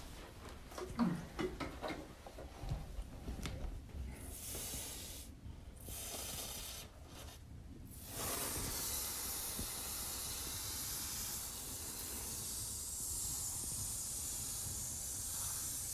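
Liquid oxidizer being sprayed onto carpet to saturate pet urine spots: two short bursts of hissing spray about four and six seconds in, then a steady hiss from about eight seconds on. Light knocks and rustles of handling come before the spraying.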